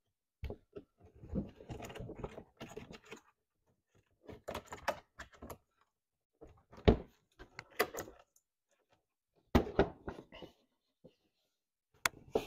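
Plastic golf cart body panel being handled and pressed down into place: scattered knocks, taps and light clatter in several short bursts with pauses between.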